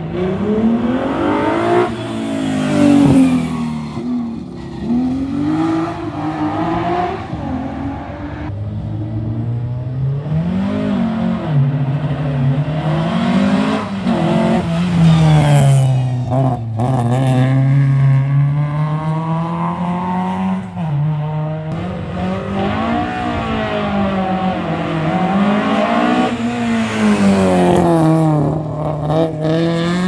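Historic rally car's engine driven hard, its pitch climbing and dropping again and again with throttle lifts and gear changes as it takes a tight hairpin and accelerates away uphill.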